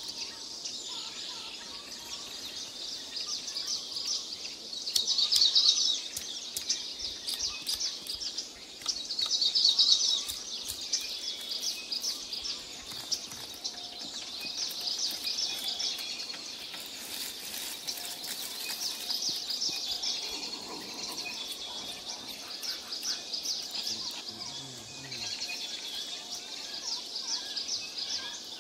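Outdoor bird and insect chirping: a dense, rapid high-pitched chatter throughout, with two louder bursts of calls about five and nine seconds in.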